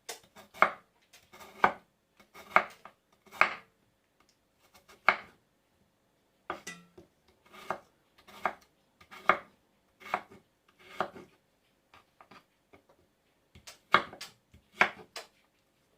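Knife chopping food on a cutting board: sharp single strokes, about one a second, with a short pause partway through.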